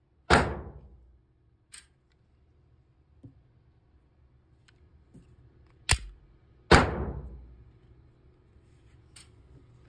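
Handling and field-stripping a Glock G23 Gen5 pistol: light metallic clicks, plus two much louder sharp bangs about a third of a second and just under seven seconds in. Each bang echoes away over about a second.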